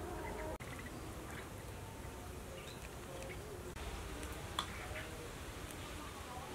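Faint outdoor background of birds calling on and off, with a few light clicks and taps from wonton wrappers being folded over a stainless steel bowl.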